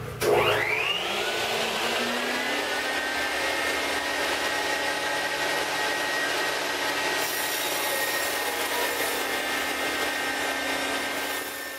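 Table saw starting with a rising whine, then running steadily while its blade cuts lengthwise through a foam insulated concrete form panel, with a hiss from the cut; the saw winds down near the end.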